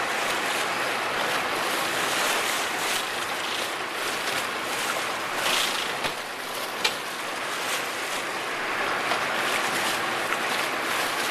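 Steady rush of wind and sea water around a sportfishing boat at sea, an even hiss with a few brief clicks or knocks, the sharpest about seven seconds in.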